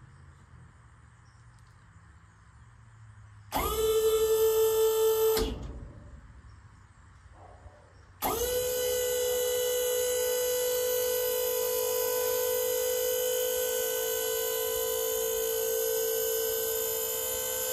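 Electric hydraulic pump motor of a Lamar 7x14 dump trailer running with a steady whine as the dump bed is raised by wireless remote. It runs briefly for about two seconds, stops, then starts again a few seconds later and runs on without a break.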